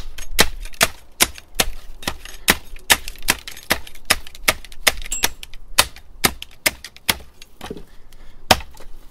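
Cold Steel South Africa kukri machete chopping through a branch laid across a wooden chopping block: a quick run of sharp chops, about two or three a second, the blade going through into the block underneath.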